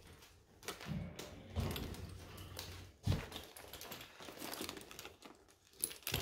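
Irregular small clicks and rustles of a bag strap and its metal clips being handled and fitted to a bag, with a sharper click about three seconds in and another near the end.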